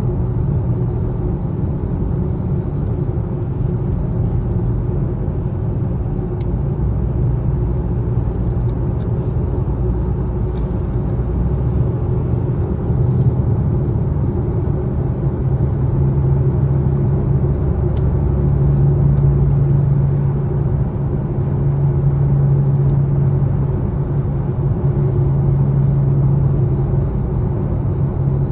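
Steady road and wind noise in the cabin of a moving 2020 Subaru Ascent, with a low hum under it that grows stronger about halfway through. This is the low humming noise the owner is documenting.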